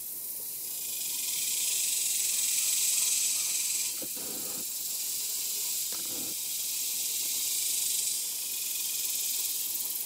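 Insect chorus in the woodland canopy: a steady, high-pitched shrilling hiss that swells twice and eases back.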